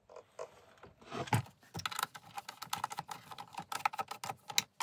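Rapid, irregular clicking and ticking of a hand screwdriver turning screws out of the plastic housing of an LED moving-head stage light, starting about a second and a half in.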